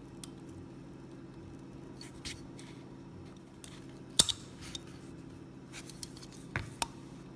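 Small metallic clicks and scrapes of steel parts in a Tanfoglio Stock 3 pistol frame as the trigger pin is wiggled into place by hand. The sharpest click comes about four seconds in and two more near the end, over a steady low hum.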